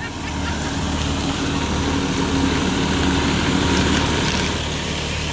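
Large diesel bus engine idling with a steady low hum, growing louder over the first few seconds and easing off slightly near the end.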